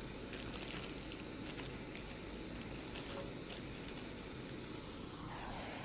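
Faint sizzle and light crackling of solder melting into a wire under a soldering iron tip as the wire is tinned, with a few small ticks, over a steady hiss and a thin high whine.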